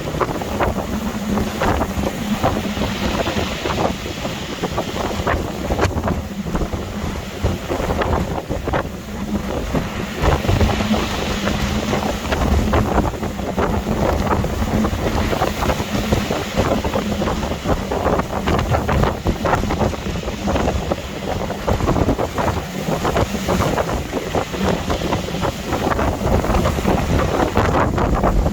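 Strong storm wind buffeting the microphone in rapid crackling gusts, with a low rumble and a faint steady hum throughout, and the sea's waves washing underneath.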